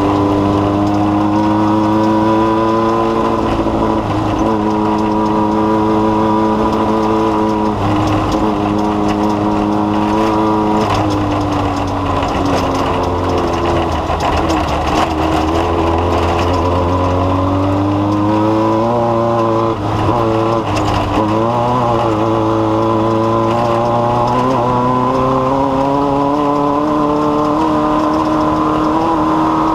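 Off-road race vehicle's engine running hard. The engine note holds steady, then sags about eleven seconds in and climbs again from about eighteen seconds.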